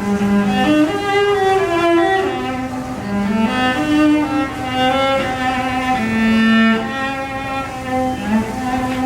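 Music played on bowed string instruments, led by a cello, with sustained notes moving through a slow melody.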